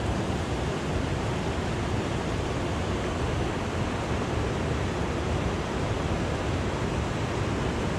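Steady rushing noise with no distinct events, even in level throughout.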